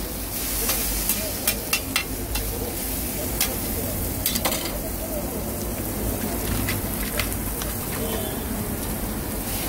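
Food frying on a steel flat-top griddle, sizzling steadily. During the first few seconds there are several sharp clicks as a metal spatula scrapes and taps the griddle while stirring the food.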